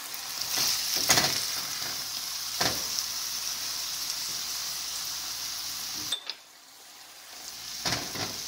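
Ground beef sizzling in a stainless steel pot with bacon fat, onion and tomato, with a few scraping strokes of a silicone spatula as the meat is stirred and broken up. The sizzle drops away suddenly about six seconds in and comes back near the end.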